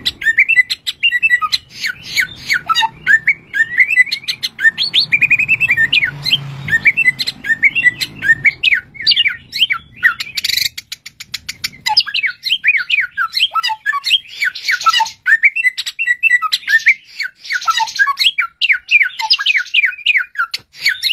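Caged samyong singing a long, unbroken, varied song of rapid whistled notes, mostly quick falling chirps, mixed with a few harsher, scratchier calls in the second half.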